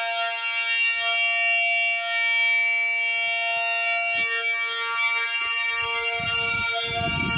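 Electric siren sounding a steady alert signal: one unbroken tone held at a constant pitch. Low rumbling noise comes in gusts over the last second or so.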